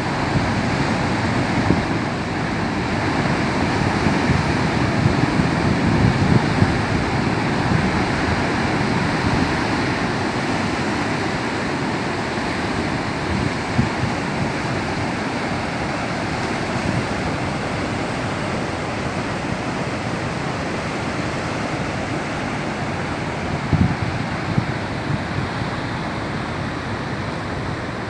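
Rough, choppy sea: waves breaking and churning continuously against the coast, swelling and easing, with wind buffeting the microphone.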